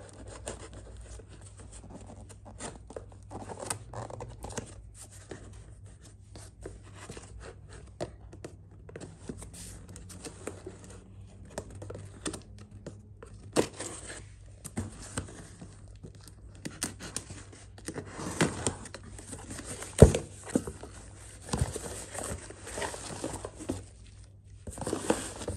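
A cardboard box being unpacked: a knife scrapes and slits the packing tape, and the cardboard flaps are pulled open with tearing, rustling and scraping. Later come denser handling noises, plastic-wrapped items crinkling as they are lifted out, and one sharp knock on the cardboard about three-quarters of the way through.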